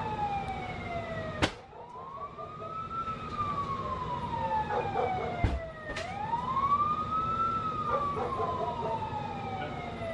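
Fire engine siren on the wail setting, rising quickly and then sliding slowly down, about two full rise-and-fall cycles. Two sharp clicks cut in, about a second and a half in and just before six seconds.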